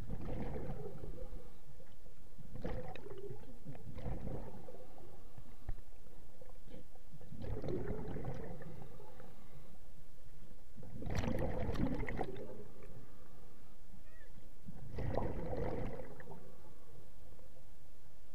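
Scuba diver breathing through a regulator underwater: a bubbling, gurgling burst of exhaled air every three to four seconds, with quieter stretches between breaths.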